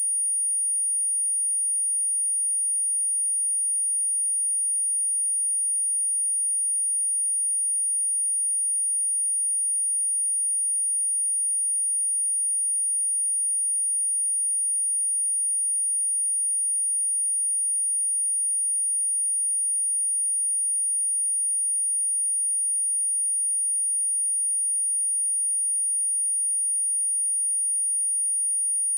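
A steady pure sine-wave test tone at 9552 Hz, a single high-pitched whistle-like note held unchanged, played to test a speaker and to vibrate water and dust out of it.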